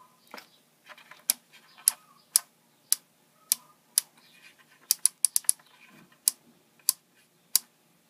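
Sharp plastic clicks, about a dozen at uneven intervals with a quick run of four around the middle, as the washer control board's selector is worked by hand to enter its test mode.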